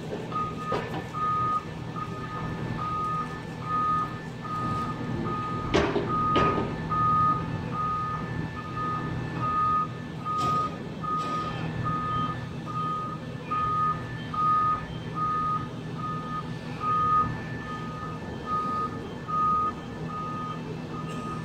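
Warning alarm on a Volvo EW205D wheeled material handler beeping steadily, a bit more than once a second, over its diesel engine running. Two sharp knocks sound about six seconds in.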